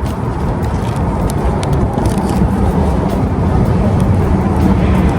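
Wind buffeting the microphone: a loud, steady low rumble that rises and falls.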